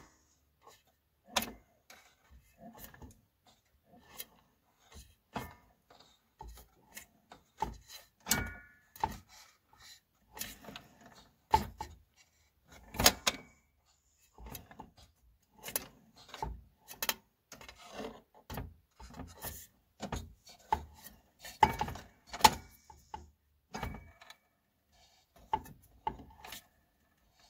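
Irregular clicks, knocks and scrapes of hands handling the metal changer arm and white plastic gear inside an opened record player, with a brief squeak about eight seconds in.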